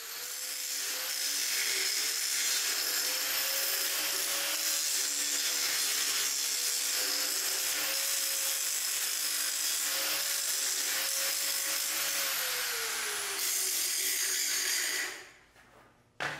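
Electric angle grinder with a flap disc grinding a steel blade held in a vise: a steady high motor whine over a grinding hiss, its pitch sagging briefly under load near the end. It then switches off and winds down, followed by a single knock as the grinder is set down.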